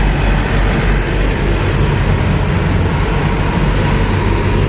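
Parked semi truck's diesel running with a steady low drone.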